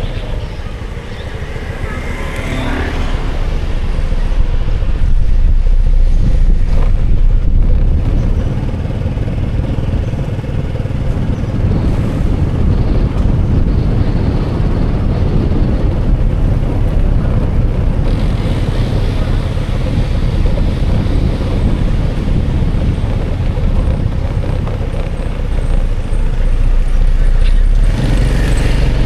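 A motor vehicle running steadily, with a heavy low rumble that grows louder about four seconds in and then holds.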